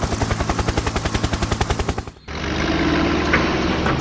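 Fast, even mechanical chugging of about ten beats a second that cuts off suddenly about two seconds in, followed by a steady engine hum.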